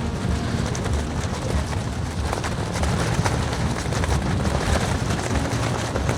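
Strong sea wind buffeting the microphone: a loud, uneven low rumble with gusts over a steady rushing hiss.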